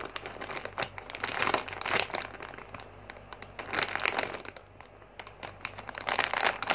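Thin clear plastic packaging bag around a squishy toy crinkling as it is handled and pulled at, in irregular bursts with a brief lull about two-thirds of the way through.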